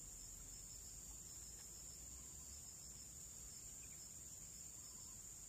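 Faint insect chorus trilling steadily: a continuous high-pitched drone with a faster pulsing trill just below it.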